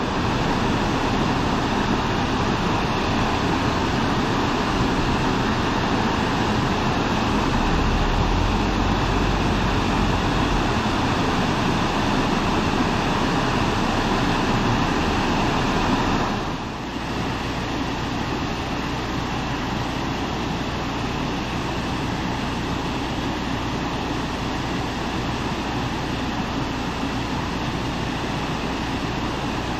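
Water rushing and splashing into a canal lock chamber through the open gate paddles as the lock fills: a loud, steady rush. It dips briefly about 16 seconds in, then carries on a little quieter.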